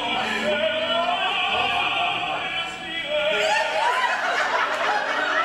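Operatic singing with orchestral accompaniment, a voice with wide vibrato over a full band of instruments.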